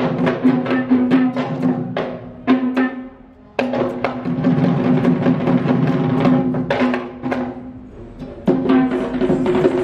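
Live traditional Sri Lankan drumming: a fast run of hand-drum strokes over a steady ringing tone. It breaks off briefly about three seconds in and again just before eight seconds, then comes back in sharply.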